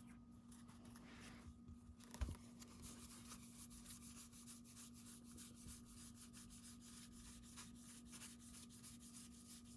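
Faint rub and rustle of trading cards being flipped through by hand, many quick soft slides of card on card, with a light knock about two seconds in, over a steady low hum.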